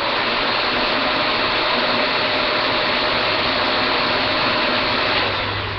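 Shark Lift-Away upright vacuum cleaner running steadily in bare-floor mode: a loud rush of air with a steady motor hum in it, easing slightly near the end.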